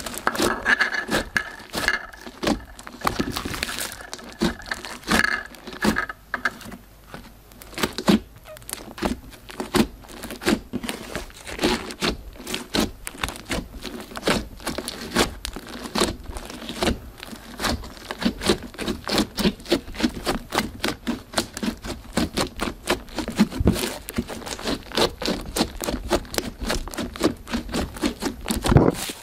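Glossy slime being worked, making a dense, irregular run of sticky clicks and crackles.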